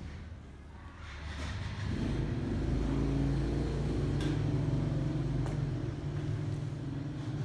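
An engine running steadily, growing louder about two seconds in, with a few faint clicks over it.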